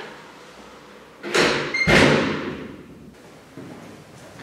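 A door slamming shut: two heavy thuds about half a second apart, each dying away over about a second.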